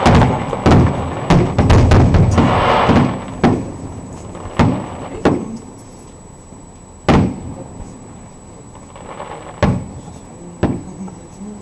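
Fireworks exploding: a dense volley of bangs for about the first three seconds, then single bangs a second or two apart as the volley thins out.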